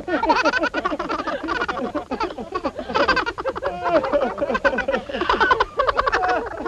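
Several voices laughing together, their laughs overlapping.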